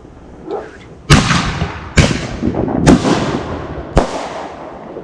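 Aerial fireworks shells bursting: four sharp booms roughly a second apart, each followed by a long echoing rumble that sounds like thunder.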